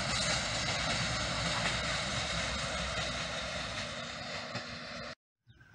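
Freight train of tank wagons rolling away along the track: a steady rumble of wheels on rails that slowly fades, then cuts off suddenly about five seconds in.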